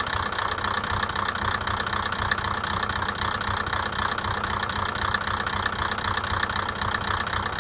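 Diesel engine of the KiHa 2004 railcar idling steadily beneath the car body, heard close up with a fast, even firing pulse.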